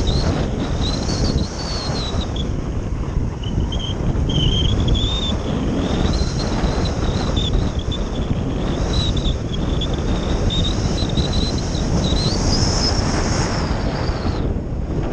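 Airflow buffeting the microphone of a camera riding on a radio-controlled glider as it soars fast along a cliff edge. Over the rush runs a thin, high whistle that wavers in pitch, rises about twelve seconds in and cuts off near the end.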